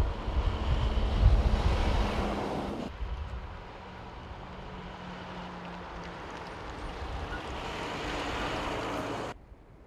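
Fire engines on a road: one passes close with a loud, heavy rumble; after a cut about three seconds in, a quieter steady rush with a faint engine hum as another fire vehicle approaches, growing louder until the sound cuts off suddenly near the end.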